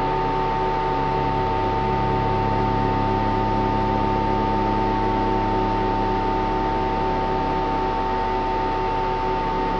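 Drone music: layered, sustained analog synthesizer tones held over a hissing noise bed, with the low bass drone shifting to a new note about a second in.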